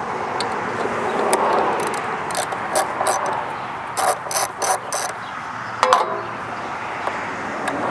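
Socket ratchet clicking in short runs as the fuel pump's 3/8 mounting bolts are backed out, the loudest clicks about four to five seconds in and one more sharp click near six seconds.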